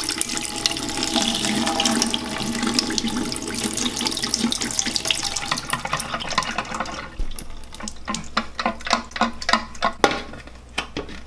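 Water pouring out of a small dehumidifier's collection tank into a sink for about seven seconds, then a string of light, irregular knocks and clicks.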